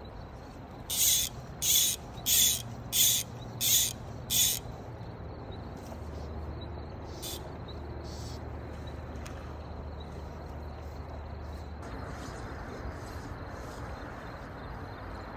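Fly reel's click drag ratcheting in short buzzes while a hooked fish is played. There are about six quick bursts in a row early on, then a couple of single ones and a few fainter ones.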